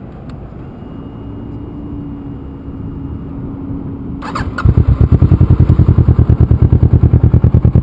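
Kawasaki Ninja 650R (ER-6) parallel-twin with a Two Brothers aftermarket exhaust being started. It is quiet at first with a faint steady whine, then a short clatter, and the engine catches about four and a half seconds in. It then idles with a loud, fast, even pulsing from the exhaust.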